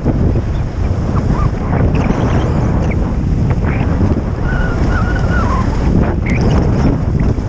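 Heavy wind buffeting on a GoPro's microphone while skiing fast downhill, over the steady hiss of skis sliding on packed snow. A faint wavering whistle rises above it about halfway through.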